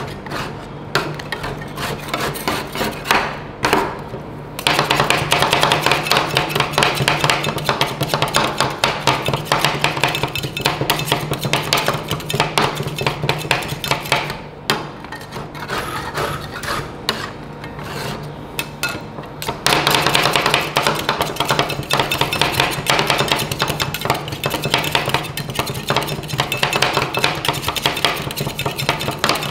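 Two metal spatulas rapidly chopping and scraping ice cream mix on the steel cold plate of a rolled ice cream pan: a dense clatter of quick taps and scrapes, lighter at the start and again between about fifteen and twenty seconds in, over a steady low hum.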